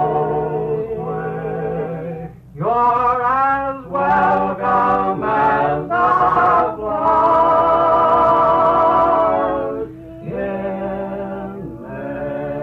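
Background music: a slow melody of long held notes with a wavering vibrato, in phrases with short breaks between them.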